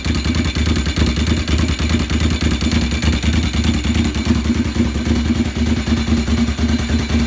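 1997 Ducati 748's 90-degree V-twin engine running at a steady idle with its exhaust removed, the firing pulses coming loud and unmuffled.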